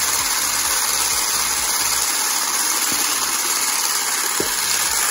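Electric hand blender with a whisk attachment running steadily at one speed, beating egg-and-sugar sponge batter as flour is worked in.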